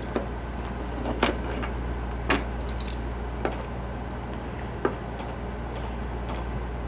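Small sharp clicks and taps, about five spread over several seconds, as a small screwdriver and fingers force wire connector pins into a plastic EC5 connector housing, over a steady low hum.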